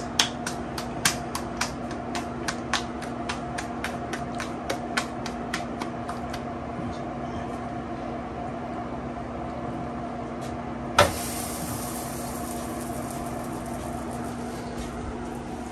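Hands patting a ball of corn masa flat into a thick tortilla (gorda), a quick, even slapping about three to four times a second that stops about six seconds in. A single sharp knock comes about eleven seconds in, followed by a faint steady hiss, with a low steady hum underneath throughout.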